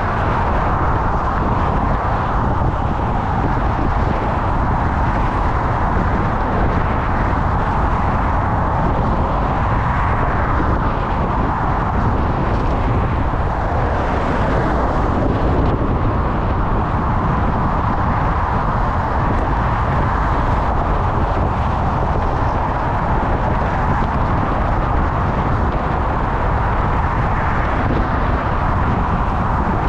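Steady wind rushing over a GoPro's microphone while cycling, mixed with the noise of road traffic.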